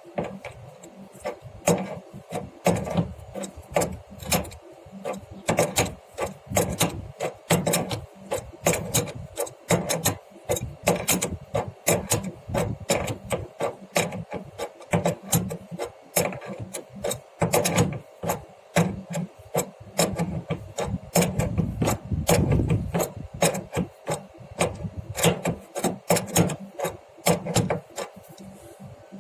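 Irregular scraping, rubbing and clicking of hand work on a split air conditioner's copper refrigerant line connection, several sharp strokes a second, as the newly flared joint is refitted.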